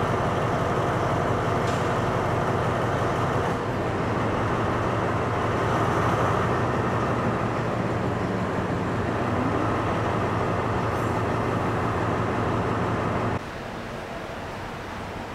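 Diesel locomotive engine idling with a steady low hum. About 13 seconds in it cuts off to a quieter, even station-hall background.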